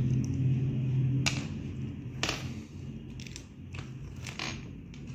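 Handling noise from decoration-light wiring being worked by hand: a few short, irregular clicks and scrapes of the wire and small plastic parts. A low steady hum under them fades out about a second in.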